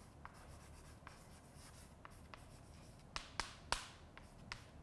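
Chalk writing on a blackboard: faint scraping strokes, with a few sharp taps of the chalk against the board in the second half.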